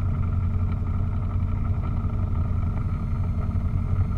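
Piper PA-28 Cherokee's piston engine and propeller running steadily at low power before the takeoff run, heard from inside the cabin.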